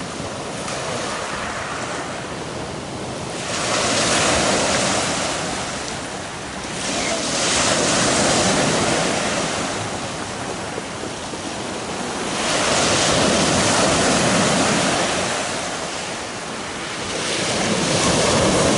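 Sea surf breaking on a shingle beach, the wash swelling and falling back in four surges about every four to five seconds, with wind on the microphone.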